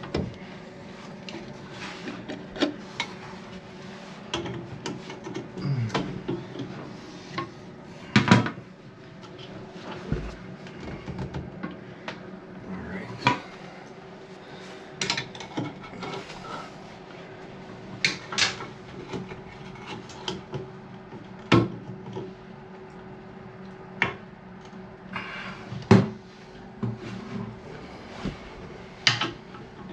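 Irregular knocks, clicks and scrapes of hand work on a toilet tank's fill-valve fittings and nut, over a steady low hum.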